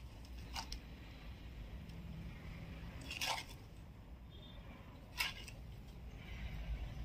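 Fingers handling stuffed fried bitter gourd and its spice powder on a banana leaf and plate: three brief crisp crackles over a faint low room hum.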